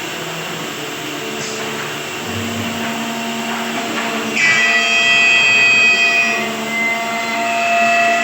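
An electric woodworking power tool running with a steady motor whine. About four seconds in it rises to a louder, higher whine, as when the tool bites into the wood.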